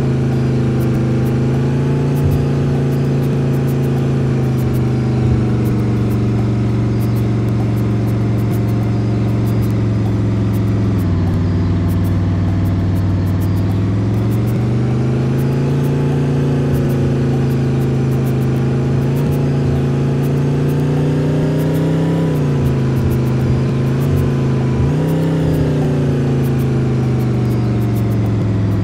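Bus engine running steadily, its pitch dropping sharply about eleven seconds in, then climbing again, with two brief dips near the end.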